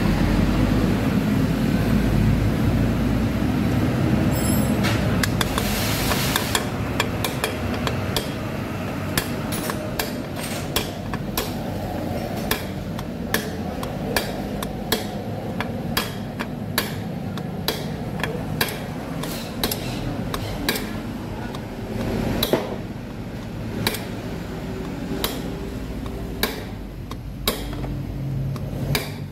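A hammer tapping a steel bearing driver rod to drive a new ball bearing into the aluminium final-drive gear case of a Yamaha X-Ride scooter. The metallic taps start about four seconds in and run on at roughly one to two a second.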